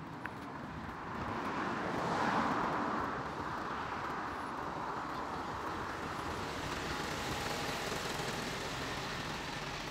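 Road traffic: a car passes on the road alongside, its tyre and engine noise swelling and fading about two seconds in, followed by a steady traffic hiss with another, gentler pass later on.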